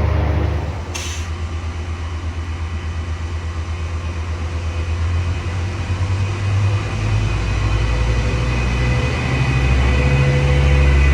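Diesel train engine running with a heavy low drone. The drone eases off about a second in and builds up again in the second half. A short hiss comes about a second in.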